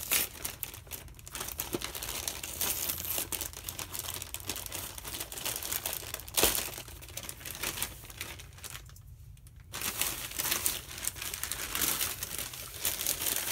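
Plastic poly mailer bag crinkling and tearing as it is ripped open and pulled apart by hand, with one sharp snap about six and a half seconds in and a brief lull a little past nine seconds.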